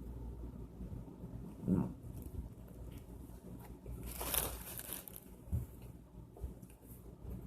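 A man eating and chewing food, with a low "mm" of enjoyment about two seconds in and a short hissing rustle around four seconds in.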